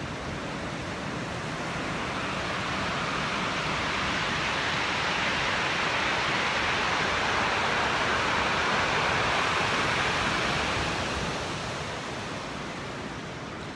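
A wave surging up a steep pebble beach, then its backwash dragging millions of small stones back down: a loud rushing, rattling hiss that builds over a few seconds, holds at its loudest through the middle and fades near the end. It is as loud as a jet plane.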